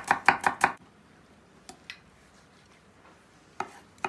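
Kitchen knife chopping onion on a wooden end-grain cutting board in quick strokes, about four a second, stopping just under a second in. After a quiet pause with a couple of light taps, spaced single chops start again near the end as a tomato is cut.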